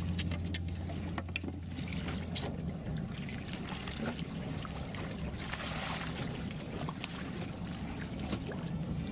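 Water splashing and sloshing against the side of a boat as a hooked bluefin tuna moves at the surface alongside, with scattered sharp splashes.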